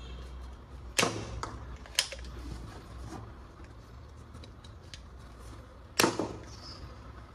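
Sharp plastic clicks and knocks from toy guns being handled: three loud ones about one, two and six seconds in, with lighter ticks between.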